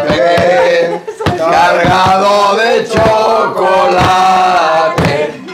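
A group of voices singing a Spanish Christmas carol together, with sharp percussive beats keeping time.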